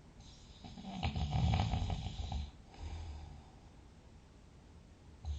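Big, loud snoring: one long fluttering snore about a second in, then a softer breath, with the next snore starting near the end.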